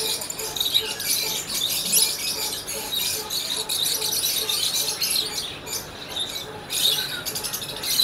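Many caged lovebirds chirping and chattering at once, a dense run of short, high calls that thins out briefly about six seconds in.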